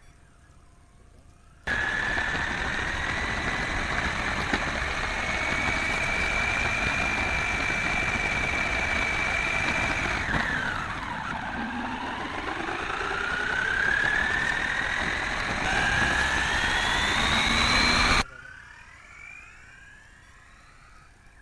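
High-revving brushless electric motor of a home-built RC buggy whining over loud drivetrain and tyre noise. The whine holds steady, drops sharply about halfway through as the car slows, then climbs again as it speeds up. It starts and cuts off suddenly.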